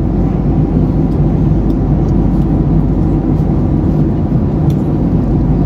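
Boeing 767-300 cabin noise in flight: a steady, even low rumble of engines and airflow, with a few faint light clicks.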